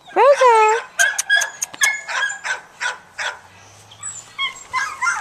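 A small dog gives one loud whining yelp that rises and then falls, then a run of short, quick yips and barks, with a few sharp clicks among them.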